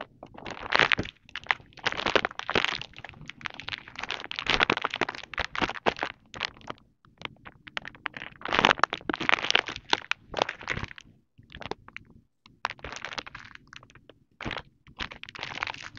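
Plastic packaging and crinkled wrapping paper being handled and unwrapped, crinkling and crackling in irregular bursts with short pauses between.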